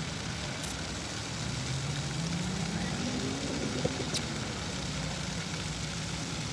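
A road vehicle's engine passing over steady background traffic, its hum rising in pitch and falling back between about two and four seconds in.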